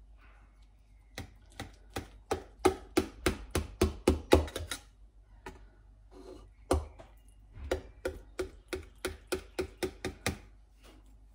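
Kitchen knife cutting through a gratin in a stainless steel pan, the blade clicking against the metal pan bottom with each stroke, about three or four a second. The strokes come in two runs with a short pause between.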